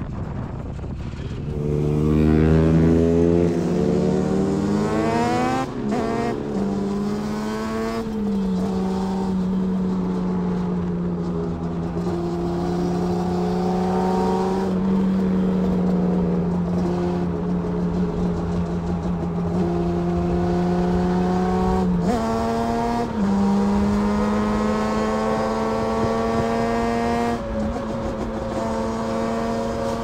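Motorcycle engine accelerating hard through several gears, its pitch climbing and then dropping at each upshift, before it settles into a steady high-revving note at speed. A quick gear change comes about 22 seconds in.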